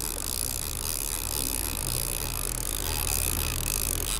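Boat engine running steadily under wind and water noise, while a fishing reel is wound in against a hooked fish.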